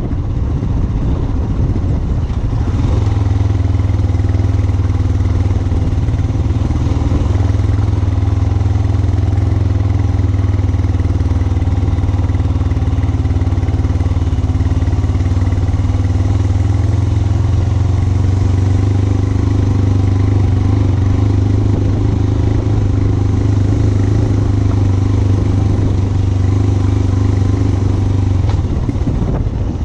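Royal Enfield Himalayan 411's single-cylinder engine running at a steady speed while riding, with wind and road noise. The engine note settles about three seconds in and eases off near the end.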